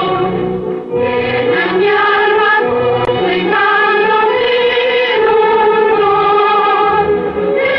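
Orchestral waltz music on an old film soundtrack, a sustained melody line over the band.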